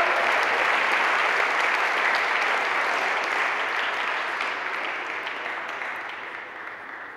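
Crowd of spectators applauding, loudest at first and slowly dying away toward the end.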